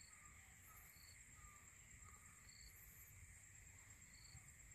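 Near silence with faint outdoor ambience: a steady high insect drone, a short high note repeating about every second and a half, and a few faint bird chirps.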